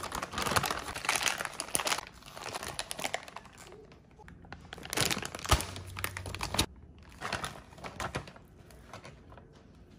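Plastic takeaway bag crinkling and rustling in several bursts, with short pauses between them, as hands open it and handle the food inside.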